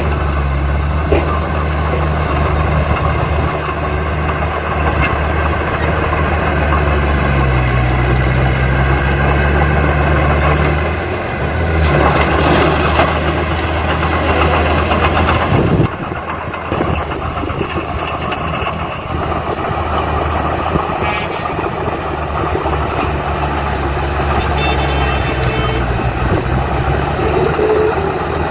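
Heavy diesel engine of earthmoving machinery running, its pitch rising around eight seconds in, with a louder, noisier stretch from about twelve to sixteen seconds that cuts off suddenly.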